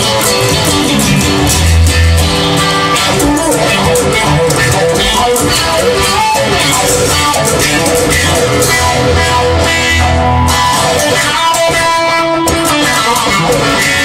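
Music: a guitar-led song, with plucked and strummed guitar over a steady beat.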